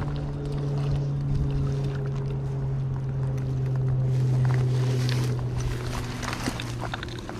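A steady low mechanical hum, like a motor running, over the even rush of river water; the hum eases near the end, and a few faint clicks sound over it.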